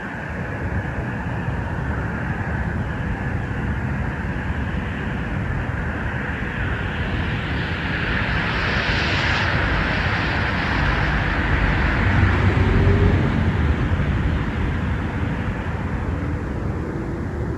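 Distant aircraft engine noise: a steady rushing rumble that swells to its loudest about halfway through, then eases off.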